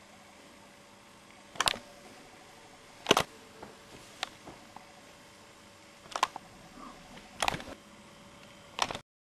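A series of about six short, sharp clicks and knocks a second or so apart over a faint steady hum, with no rolling thunder; the sound cuts off near the end.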